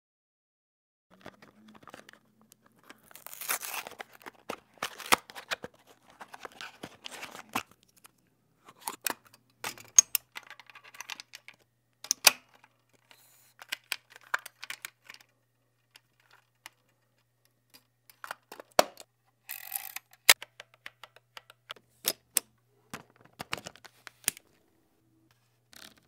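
Close-up handling of a 35 mm film camera: film being loaded and threaded onto the take-up spool, with irregular sharp mechanical clicks and scraping and rustling of the film and camera parts. Longer rustles come a few seconds in and again near the twenty-second mark.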